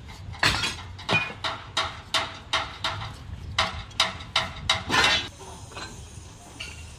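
A steel bar strikes repeatedly into a hot sand mold in its iron flask: a rapid series of sharp knocks with a slight metallic ring, about three a second, stopping after about five seconds. The strikes break the packed sand out around the freshly poured casting.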